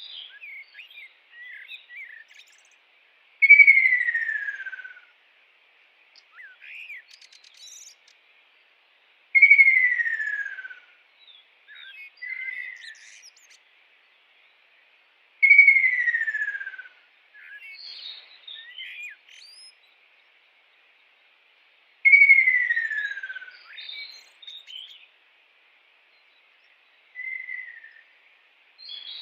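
Kingfisher calling: four loud, drawn-out whistles, each sliding down in pitch over about a second and a half, one roughly every six seconds, with softer short chirps between them. A faint steady high buzz runs underneath.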